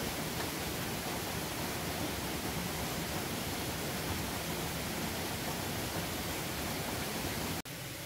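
Waterfall rushing in a steady, even roar of falling water. Near the end the sound cuts out for an instant and comes back a little quieter.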